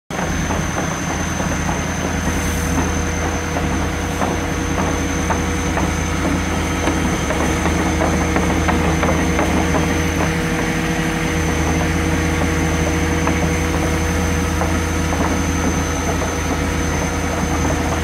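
ABG Titan 111 asphalt paver's diesel engine running steadily at an even speed, with a constant clatter of clicks and rattles and a thin, steady high whine over it.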